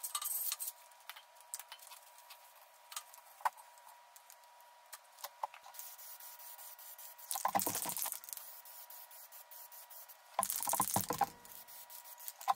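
Aerosol can of black spray paint hissing in short bursts, the longest about six seconds in, with a few light clicks and rattles between.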